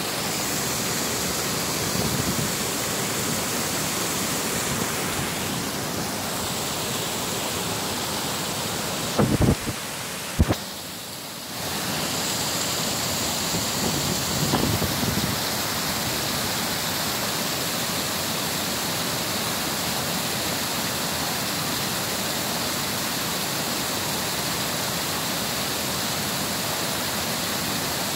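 Water pouring over a small weir into a foaming stream, a steady rushing hiss. About nine and ten seconds in come two sharp knocks, and the rushing briefly drops away for a couple of seconds before returning.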